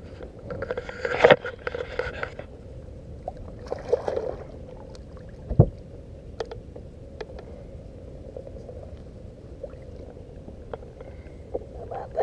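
Handling noises aboard a small fishing boat: a faint steady hum, scattered light clicks and rustles, and one solid thump on the boat about five and a half seconds in.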